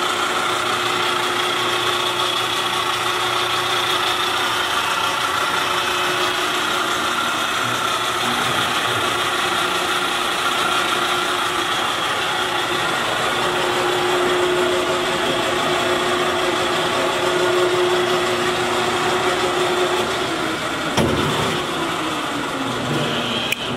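Electric drive motor and gearing of a Pandjiris 3000 lb welding positioner running under power with a steady hum and a few fixed tones. About 21 seconds in there is a click, and the motor winds down with a falling pitch.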